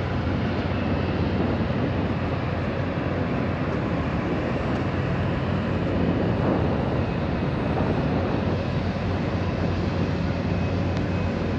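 Steady engine noise on an airfield apron: an even, unbroken drone with a low hum underneath.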